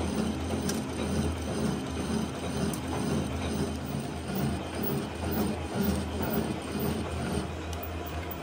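Metal lathe running, turning a large steel bar for a crane hook, with a steady low hum and an uneven mechanical churn above it.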